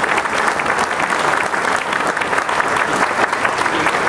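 Audience applauding, a steady crackle of many hands clapping.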